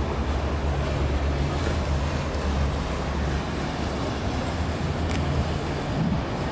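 A low, steady engine drone that fades after about four seconds, over a broad hiss of water and city background. Wind buffets the microphone near the end.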